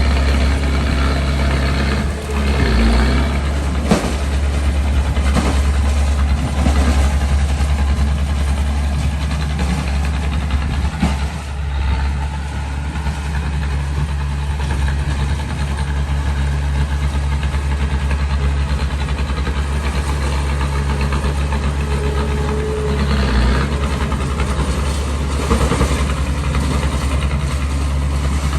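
Small bulldozer's diesel engine running steadily under work, with a few brief changes in engine note.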